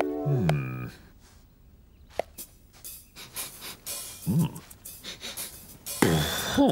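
A held musical chord slides down in pitch and ends within the first second. Then a cartoon man's short wordless murmurs come about four seconds in and again near the end, with a few faint clicks between them.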